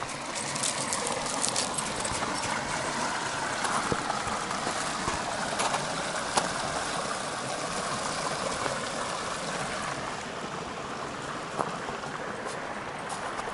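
Small stream running over rocks, a steady rush and trickle, easing a little near the end, with scattered sharp clicks.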